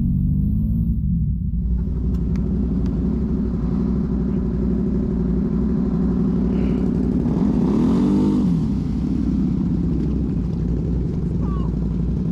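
Off-road vehicle engine running steadily over a low rumble, its pitch dropping off in the first second or so and revving up and back down once about eight seconds in.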